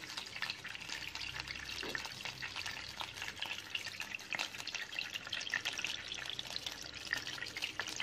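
Salmon steaks frying in hot oil in a nonstick pan: a steady sizzle full of small crackling pops.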